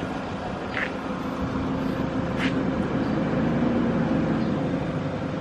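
Steady engine hum and road noise of a moving vehicle, heard from on board, with two brief high chirps about one and two and a half seconds in.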